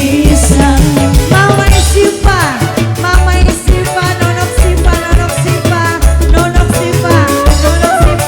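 Loud dangdut band music with a steady drum beat under a pitched melody, with a sliding melodic phrase about two seconds in.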